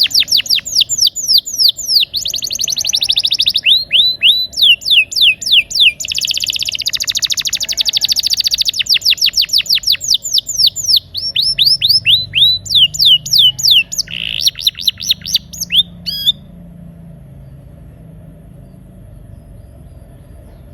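Canary singing a loud, fast song of rapid trills and rolls, repeated downward-sweeping high notes, some runs so fast they blur into a buzz. The song breaks off about three-quarters of the way through, leaving only a faint low hum.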